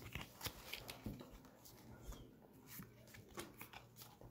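Faint handling noise of Pokémon trading cards being flipped through: a few scattered soft clicks and rustles over a low steady hum.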